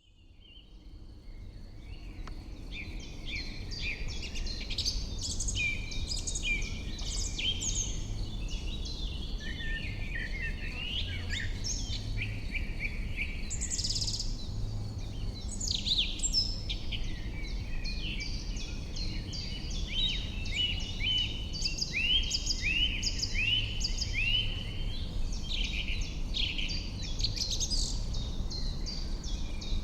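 Dense chorus of songbirds singing and calling, many overlapping chirps and warbled phrases, over a steady low rumble; it fades in over the first few seconds.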